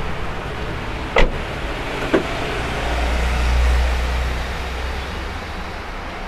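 Two sharp clicks about a second apart as the doors of a Maruti Suzuki Swift are handled and its rear door is opened, over a steady outdoor background noise. A low rumble swells and fades midway.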